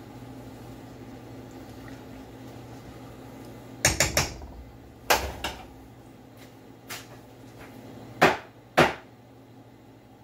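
Sharp clinks and knocks of kitchenware, a glass salsa jar and a metal pot, over a steady low hum. A quick cluster comes about four seconds in, then single knocks, and the two loudest come half a second apart near the end.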